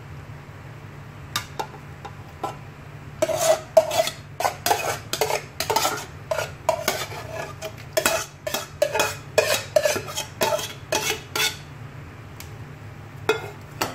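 Metal spoon clinking and scraping against an aluminium cooking pot and bowl while vegetable curry is spooned over rice, a quick run of knocks from about three seconds in that stops near the end.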